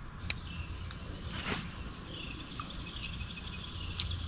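Outdoor insect chirring, like crickets, with a few sharp clicks, one early and one near the end, and a brief swish in the middle.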